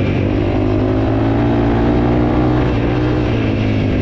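Honda CRF300L's single-cylinder four-stroke engine running at steady revs under load as the motorcycle climbs a dirt road.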